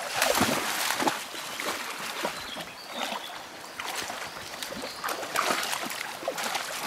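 Poodles wading and running through shallow river water, splashing and sloshing; the splashing is heaviest in the first second or so, then continues more irregularly.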